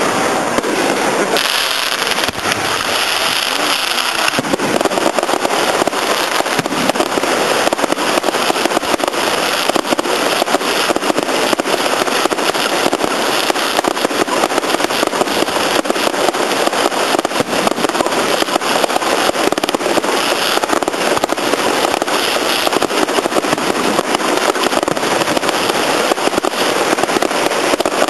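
Fireworks going off in a dense, unbroken barrage of rapid pops and crackles, with hissing as ground fountains spray and shells launch.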